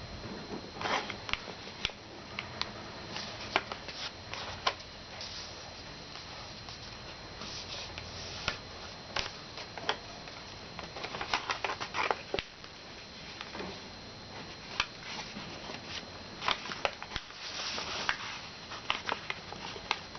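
A sheet of paper being handled, folded and creased by hand: irregular crackles and rustles, some sharper clicks as the folds are pressed down.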